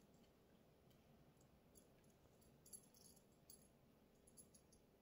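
Near silence: quiet room tone with a few faint, short clicks.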